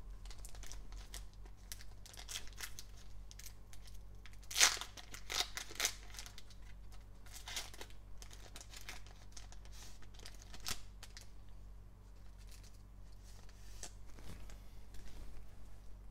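Foil trading-card pack crinkling and being torn open by hand, in irregular crackles. The loudest tearing comes about four to six seconds in, with smaller crackles and rustles as the pack is worked open and the cards are pulled out.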